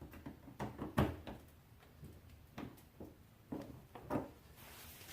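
Plastic push-pin clips being pried at and worked loose from a car's wheel-well liner with a trim tool: a run of irregular knocks and clicks, a dozen or so, with a brief rustling hiss near the end.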